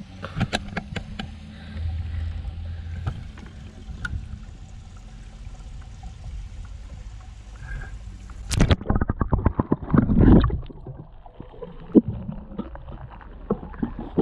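Water sloshing and knocks from a plastic bucket being handled, then loud splashing of water into the river from about two-thirds of the way through as the bucket is dipped or tipped at the water's edge.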